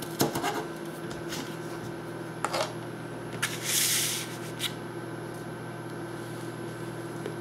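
A few chef's-knife strokes on a plastic cutting board as a red bell pepper is diced, then a short scraping sweep about four seconds in as the diced pepper is pushed off the board onto a paper plate. After that only a steady hum.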